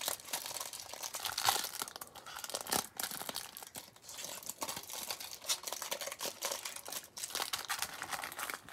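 Plastic wrapping from a pack of trading cards crinkling and rustling in the hands, in irregular small crackles.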